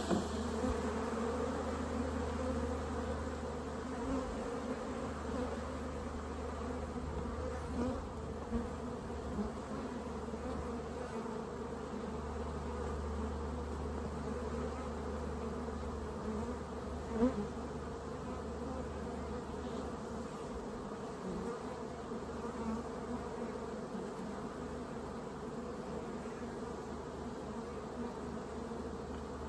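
A colony of honeybees buzzing steadily around an open hive during an inspection, a hum with a clear pitch, and one short knock about two-thirds of the way through.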